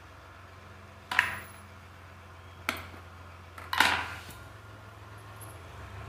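Three sharp clinks of small hard objects, each a second or so apart, the last with a brief ring, over a low steady hum.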